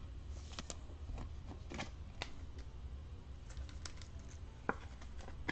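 Trading cards and clear plastic card sleeves being handled: scattered soft clicks and light rustles, the sharpest tick about four and a half seconds in.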